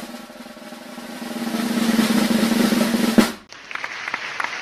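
A snare drum roll that builds louder and ends in a single hit about three seconds in, the reveal cue for a score. Recorded applause follows.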